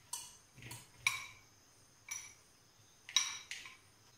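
Spoon clinking against a glass bowl as fried banana pieces are tipped and scraped out into a mixing bowl: six or so short, irregularly spaced clinks, each with a brief ring.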